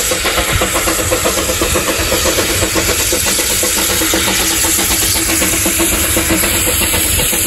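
Narrow-gauge steam locomotive No. 762 Lyn working a train as it approaches: a rapid, even beat of exhaust chuffs from the chimney, loud and steady.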